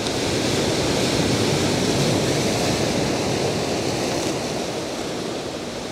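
Ocean surf washing in over a shore of rounded boulders, a wave surging louder up to about two seconds in and then easing off.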